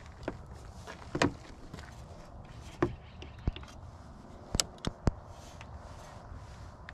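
Several sharp plastic clicks and knocks as a portable jump starter and its clamp cable are handled and the cable's plug is pushed into the jump pack, ready to jump a dead battery. They come in an irregular series over a steady low background rumble.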